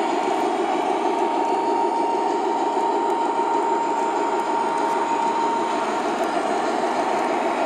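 O scale model train rolling along its track: a steady rumble of wheels with a steady high whine over it.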